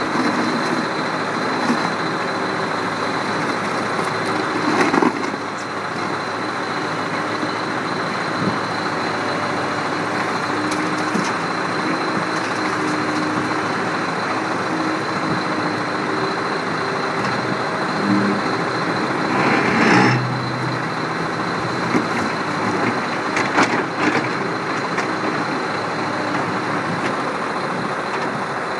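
Badger 1085D wheeled excavator's diesel engine running under hydraulic load as it digs soil and loads a dump truck, its note shifting as the arm and bucket work. Short louder clunks and scrapes stand out, the loudest about five and twenty seconds in.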